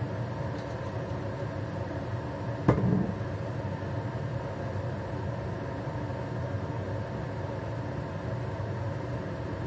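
A steady machine hum, with a single sharp knock about two and a half seconds in as a glass bottle is set down on the countertop.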